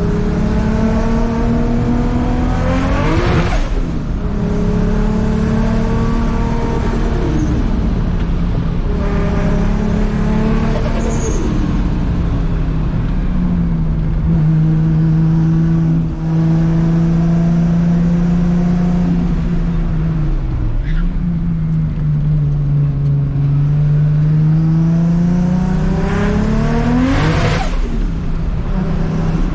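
Big-turbo Toyota Supra 2JZ-GTE inline-six engine running loud, its note rising and falling, with three sharp climbs in pitch to a peak, about three seconds in, about ten seconds in and near the end.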